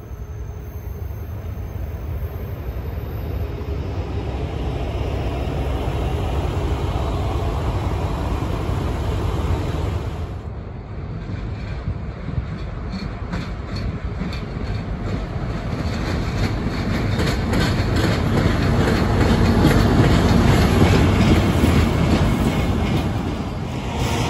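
A set of Finnish Dv12 diesel locomotives rolling along the yard tracks: a low engine and rolling rumble that builds in loudness, with regular clicking of wheels over rail joints.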